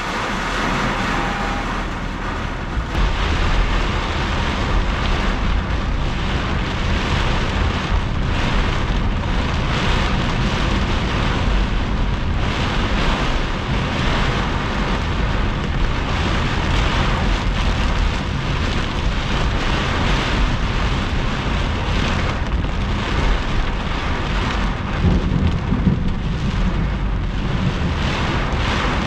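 Torrential thunderstorm rain beating on a car's roof and windshield, heard from inside the car. It is a dense, steady downpour with a heavy low rumble, and it grows louder about three seconds in.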